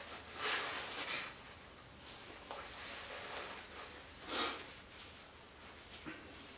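Heavy breaths through the nose: a longer one about half a second in and a short, sharp one about four seconds in. Between them, faint rustling of tissue paper rubbing a small metal rifle part, with a couple of light ticks near the end.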